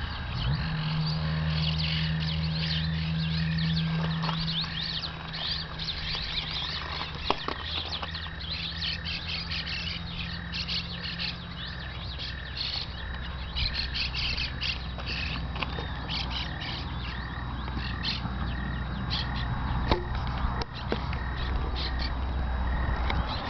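Small birds chirping and twittering: many short, high calls, thick at times, over a low steady hum.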